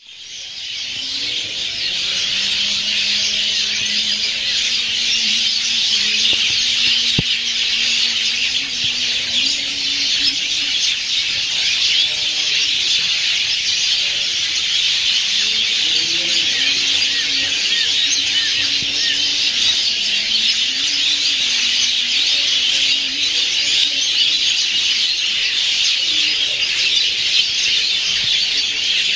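A dense, steady high-pitched wildlife chorus with bird calls, fading in over the first couple of seconds. A faint low wavering tone moves slowly up and down underneath.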